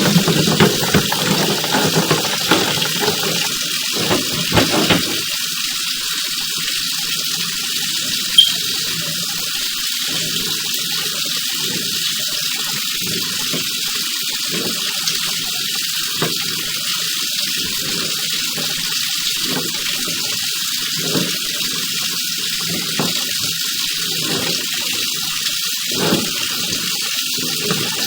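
Water running steadily, an even rushing hiss, with a single sharp click about eight seconds in.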